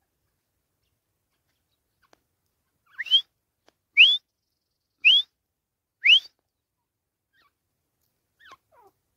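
Grey francolin calling: four loud, rising whistled notes about a second apart, then a faint falling note near the end.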